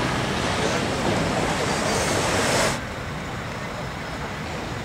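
Street traffic noise from passing cars and buses, a steady rush. About three seconds in it cuts abruptly to a quieter, duller traffic hum.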